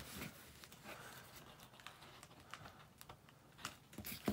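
Scissors and hands working at a taped cardboard box: faint, scattered clicks, taps and scrapes on the cardboard, with a sharper knock near the end.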